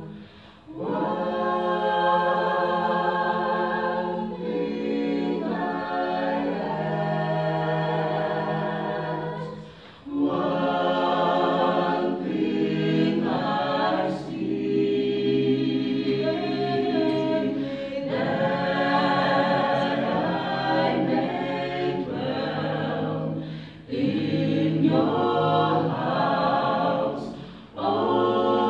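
A small mixed group of men's and women's voices singing a cappella in close harmony, holding chords in long phrases broken by brief breath pauses.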